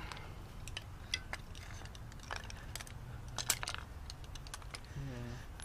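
Scattered light clicks and clatter of hand tools and parts being handled while working on car suspension.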